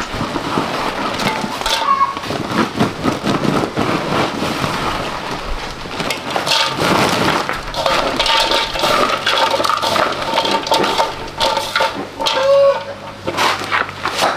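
Dry, brittle flakes poured from a woven plastic sack into a metal basin and turned over by hand, rustling and crackling, with a chicken clucking in the background.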